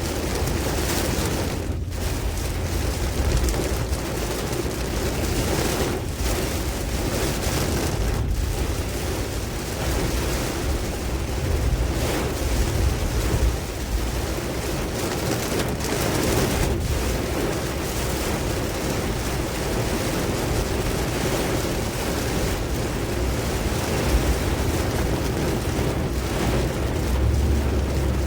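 Tropical storm wind and rain: a steady rush of noise with heavy low rumbling gusts buffeting the microphone.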